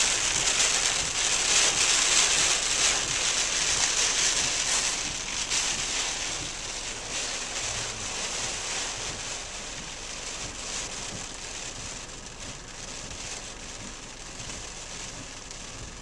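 Heavy rain falling on a parked car's roof and windshield, heard from inside the car as a dense patter that grows gradually quieter through the span.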